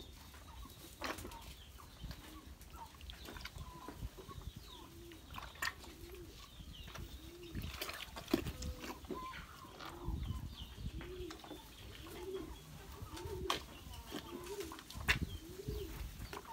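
A cow munching feed from a basin, with crunchy chewing, clicks and low knocks. Behind it, a low cooing call repeats about once a second from about seven seconds in.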